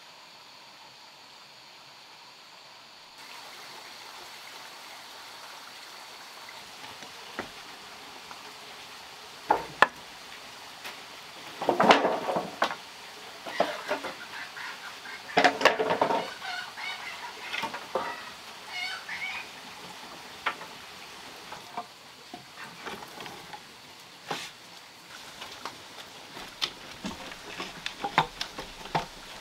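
Sticks of firewood knocking and clattering against each other as they are handled and pushed into a wood-fired stone stove, the loudest knocks bunched together partway through, followed by a wood fire crackling with scattered small pops.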